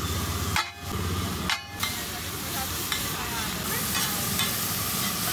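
Sliced onions sizzling in foaming butter on a large flat iron griddle (tawa), with a metal spatula scraping and clicking against the pan as the onions are spread. The sizzle breaks off briefly twice in the first two seconds.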